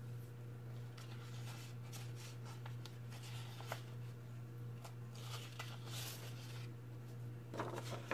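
Faint rustling of a sheet of paper being handled, in a few short strokes with the most near the end, over a steady low hum.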